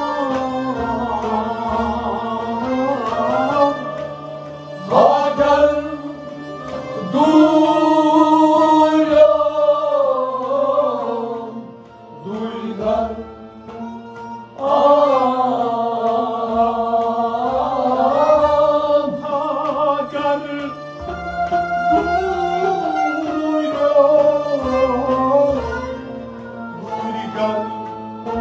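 Kashmiri Sufiana kalam: a man sings long, bending phrases over a harmonium, with a hand-played clay goblet drum (tumbaknari) keeping time and a long-necked string instrument accompanying. The singing drops away briefly about halfway through, then comes back.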